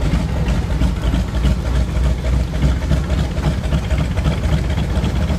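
Wallis & Steevens steam ploughing engine running, a loud, steady low rumble.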